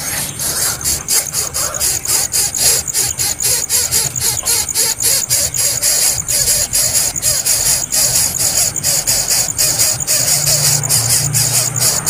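Nestling birds giving rasping, squealing begging calls over background music, which has an even, rhythmic high ticking.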